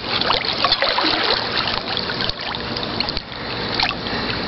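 Swimming-pool water lapping and trickling, with many small splashes throughout.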